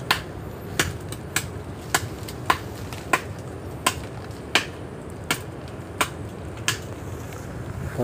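Repeated chopping strokes into the trunk of a dead, rotting coconut palm being felled, a sharp chop about every two-thirds of a second.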